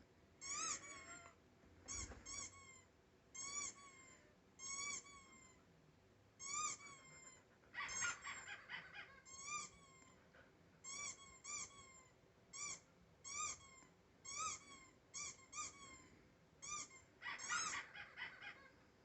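Rubber squeaker dog toy being squeezed over and over: short, high squeaks, all of the same rise-and-fall shape, coming in quick irregular runs, with a brief scuffling burst about eight seconds in and another near the end.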